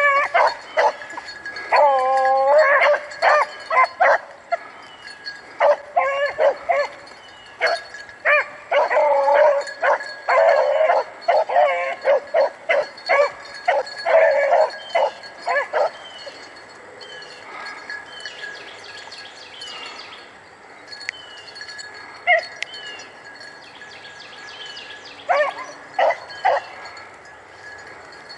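Rabbit hounds baying over and over while running a swamp rabbit's trail: the barks come thick and fast for about the first sixteen seconds, then only a few scattered ones follow.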